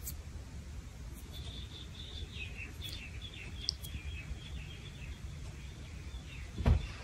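Faint, short, high chirps of small birds, some gliding down a little, over a low steady room hum, with a dull thump near the end.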